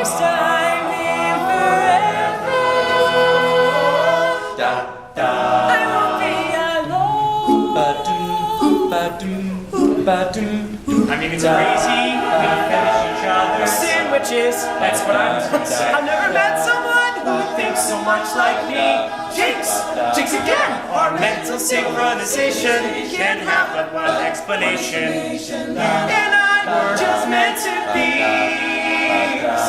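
Male a cappella group singing in close harmony, several voices at once with no instruments, with a short break about five seconds in.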